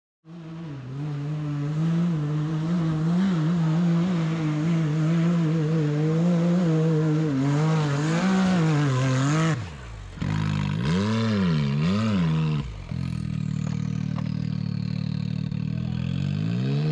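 Side-by-side UTV engine working under load as the machine crawls over a rough, rocky trail, its pitch wavering with the throttle. About ten seconds in it drops off, revs up and down a few times, then runs steadily.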